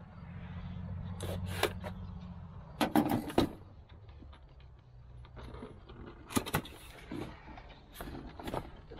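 A cardboard box being cut open and handled: a knife slitting the tape, then the box scraping and its flaps and lid being pulled open, heard as sharp rustles, scrapes and taps scattered through. A low steady hum runs underneath for the first three seconds or so, then fades.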